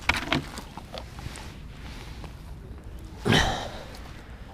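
Light rustling and small clicks of hands working among plastic bait tubs, with one short, loud rush of noise, like a breath or a brush against the microphone, about three seconds in.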